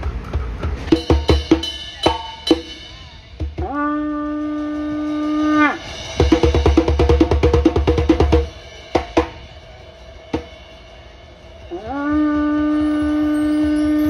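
Rope-tuned hand drum played in clusters of quick strokes, broken twice by a long blast on an animal horn. Each blast lasts about two seconds, sliding up in pitch as it starts and dropping off at the end.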